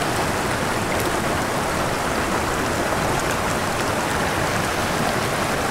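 Small mountain creek running over rocks close by: a steady, even rush of water.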